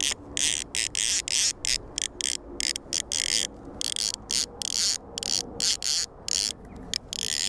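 Fly reel's ratchet buzzing as a hooked carp pulls line off the spool, in many irregular short spurts with brief gaps between them.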